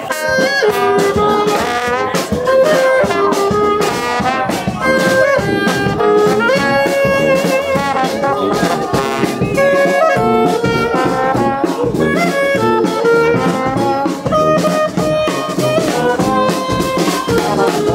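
Brass band playing upbeat jazz: horns carrying a melody over a drum kit.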